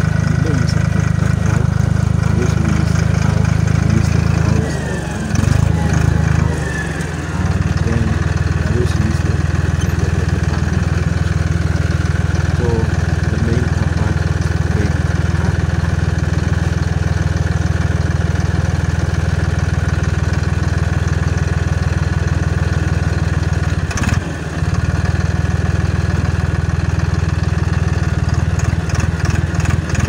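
Valtra tractor's diesel engine running steadily while it pulls a two-disc plough through the soil. The sound dips briefly a few seconds in and again about three-quarters of the way through.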